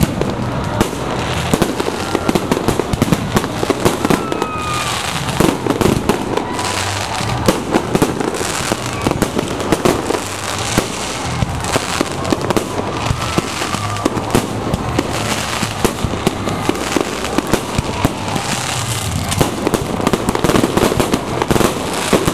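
Aerial fireworks shells bursting in quick, continuous succession, many sharp bangs overlapping without a break.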